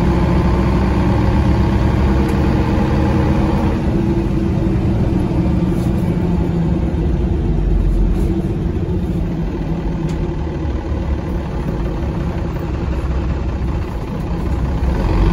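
Mercedes-Benz O405 city bus's diesel engine running under way, heard from inside the passenger cabin. The engine note drops about four seconds in and stays lower and quieter, then picks up again near the end.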